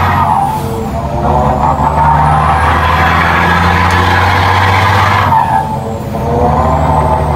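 Renault Premium 370 truck's diesel engine pulling under load, heard from inside the cab, with a faint high whistle that rises and falls with the pull. About five seconds in, the engine eases off and then pulls again.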